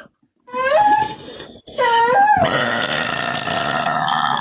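A person burping: two short burps with wavering pitch about half a second in and around two seconds, then one long drawn-out burp from about two and a half seconds on.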